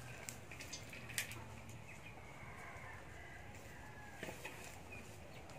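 Hands stirring and crumbling mushroom spawn through dry substrate in a metal basin: scattered crackling rustles and clicks, the sharpest about a second in and again near four seconds. Chickens cluck faintly in the background.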